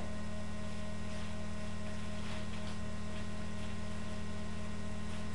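Steady low electrical mains hum, with a few faint soft rustles.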